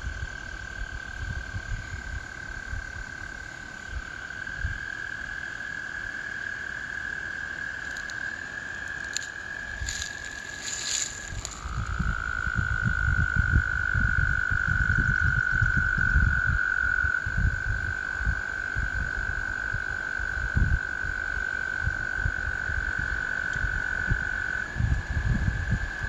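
American toads trilling: long, steady, high musical trills, one toad's trill ending about halfway through and another's starting right after, with two toads at slightly different pitches overlapping at times. A low, uneven rumble runs underneath.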